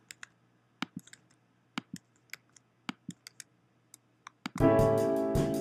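Scattered computer mouse clicks, about ten over the first four seconds, then MIDI playback of a notated arrangement in Finale starts loudly about four and a half seconds in: keyboard chords with bass and a drum kit.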